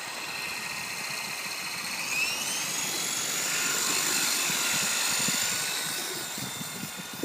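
WLToys V913 RC helicopter's electric motor whining high overhead; about two seconds in the pitch rises as it speeds up, grows louder, then fades near the end as it flies away.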